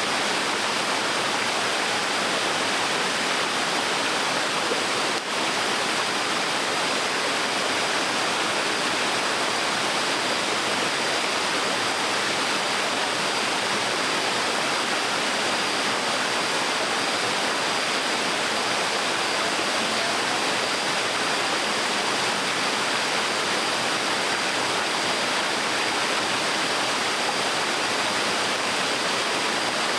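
Small waterfall on a stream, water falling and splashing in a steady, unbroken rush.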